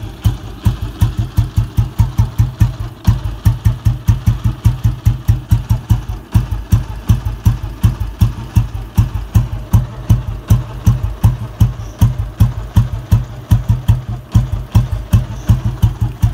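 Old Royal Enfield Bullet's cast-iron single-cylinder engine idling through its chrome fishtail silencer: a slow, even 'dug-dug' exhaust beat of about four to five thumps a second.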